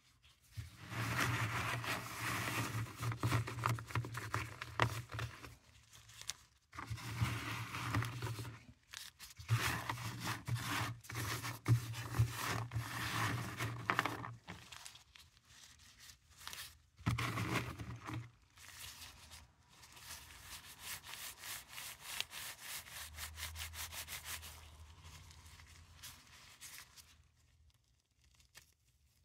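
Gloved hands scooping up and rubbing together flat paradichlorobenzene mothball tablets in a round box: the tablets scrape and click against each other and the box in several bursts, with a softer, steadier stretch later on, then fall quiet near the end.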